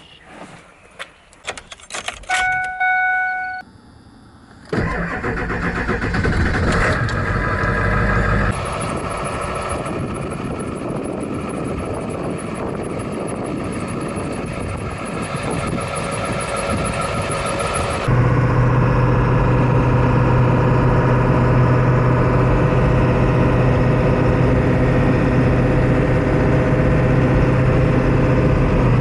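Vehicle interior: a few clicks and a short electronic chime, then the engine cranks and starts about five seconds in and keeps running. About eighteen seconds in the sound steps up to a louder steady hum and stays there.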